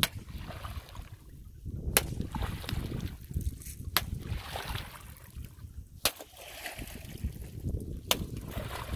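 Shallow muddy water splashing and sloshing as it is flung out of a channel in repeated sprays. Sharp clicks come about every two seconds.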